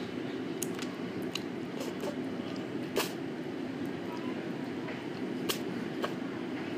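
Steady low rumble with a few scattered light clicks of tableware, the loudest about three seconds in.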